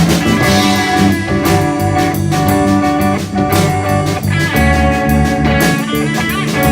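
Rock band playing an instrumental passage without vocals: guitars over bass and a drum kit, with sustained chords and a steady drum beat.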